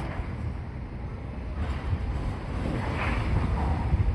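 Wind buffeting the microphone outdoors, a low uneven rumble, with a swell of broader noise in the middle that rises and fades away.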